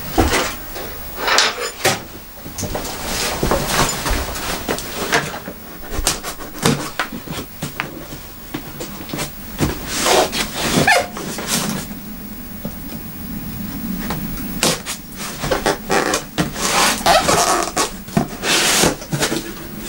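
A knife slitting the packing tape on a cardboard box, with irregular scraping and knocks of cardboard as the box is turned and handled on the bench.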